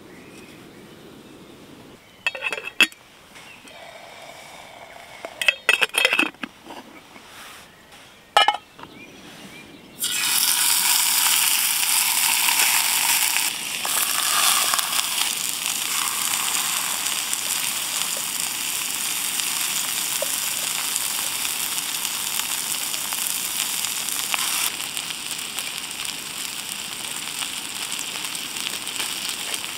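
A few sharp clinks and knocks of cookware, then about a third of the way in food starts sizzling in a hot pan and keeps up a steady sizzle.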